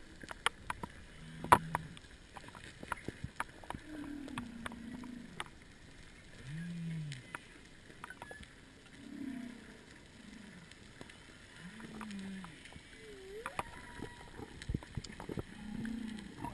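Humpback whale song heard underwater: a series of low moans, most of them arching up and falling back, with one rising whoop near the end. Sharp clicks and crackles run throughout.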